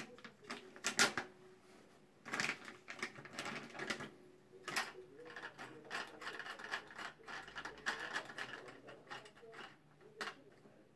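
Irregular plastic clicks, taps and rattles from a Kale concealed-cistern fill valve being handled and worked on by hand, with the sharpest knocks about a second and two and a half seconds in.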